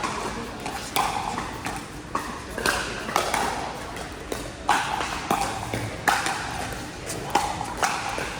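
Pickleball paddles striking the hard plastic ball in a rally: sharp pops at irregular intervals, roughly one a second, each with a short echo.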